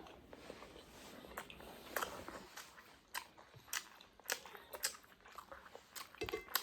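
Close-miked eating: soft chewing and crunching with scattered small clicks and crackles of mouth and food noise.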